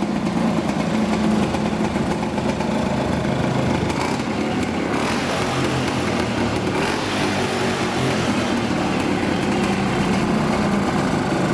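Puch SGS 250's split-single two-stroke engine, two pistons sharing one combustion chamber, running on the stand, its note shifting about five seconds in.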